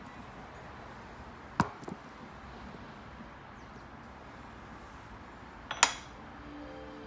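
Steel pellet-mold parts clinking on a steel press bed: a sharp metal clink about a second and a half in with a lighter one just after, and another clink near the end as the mold block is set down.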